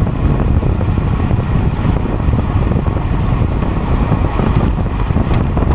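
Loud, steady wind rush buffeting the microphone of a road bicycle riding at time-trial speed.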